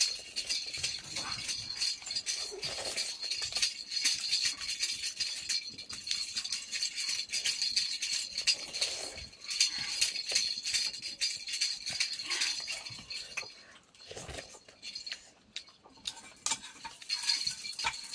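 Egg noodle soup being eaten: noodles slurped and chewed, with a fork and spoon clicking irregularly against a metal bowl.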